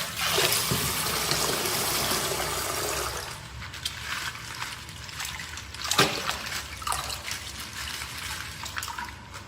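Crinkling and rustling of plastic toy packaging being handled and torn open, with scattered sharp clicks and snaps. It is louder for the first few seconds, then softer, with a sharp snap about six seconds in.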